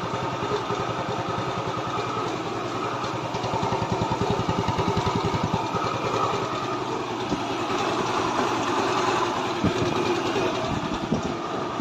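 Rebuilt scooter engine running steadily with a rapid, even firing beat, on its test run after reassembly.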